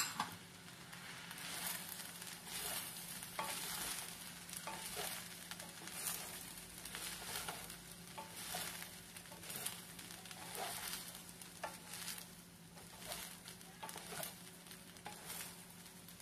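Fried rice being stirred and tossed with two wooden spatulas in a stainless steel pan: irregular scraping strokes against the metal, about one a second, with light sizzling. A knock right at the start and a steady low hum underneath.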